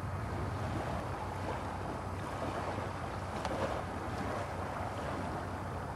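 Steady wind and sea ambience: an even rush with no distinct calls or events.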